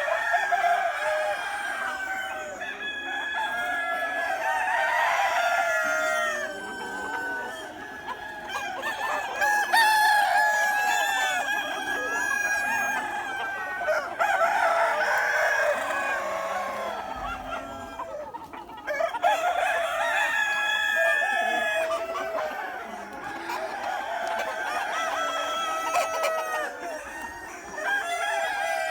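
A flock of chickens calling over one another, with clucking and several roosters crowing, the calls overlapping throughout.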